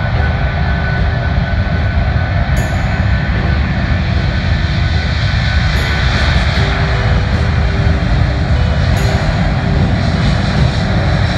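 A British Airways Boeing 747-400's four jet engines running as the airliner rolls along the ground, a loud steady rumble with a faint hum through it.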